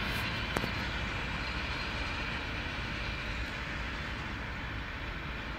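Long freight train's wagons rumbling along the rails as it moves away, the sound slowly fading. A single sharp click about half a second in.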